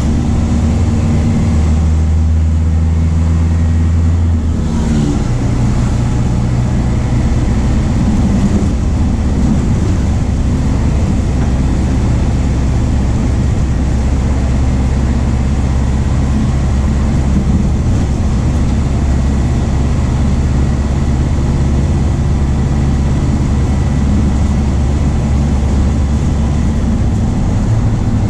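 MAN D0834 four-cylinder diesel of a VW 17.230 OD bus running under way. The engine note changes about four and a half seconds in, then runs steadily.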